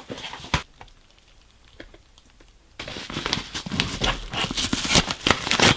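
Packaging crinkling as a replacement washing-machine fill valve is unwrapped: a short rustle at the start, a quieter pause, then about three seconds of continuous crinkling that stops abruptly.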